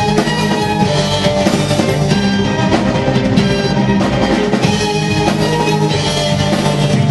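Loud music with a drum kit keeping a steady beat under a full mix of other instruments, in a rock style.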